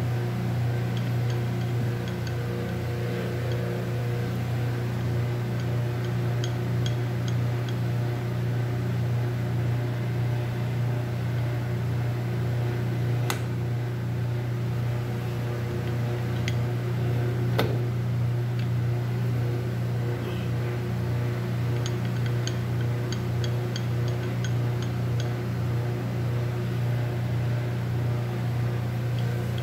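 Steady hum of a running workshop electric motor, with two sharp clicks partway through and a few faint light ticks.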